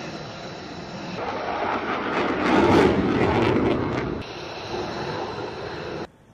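Military jet flying over, its engine noise swelling to a peak about three seconds in and then fading; the sound cuts off abruptly near the end.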